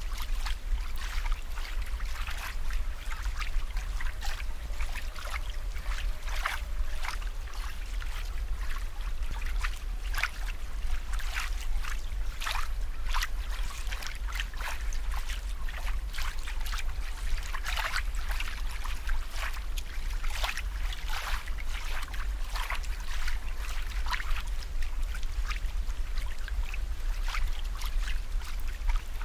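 Water trickling and bubbling, with many small, irregular drips and plops throughout, over a steady low hum.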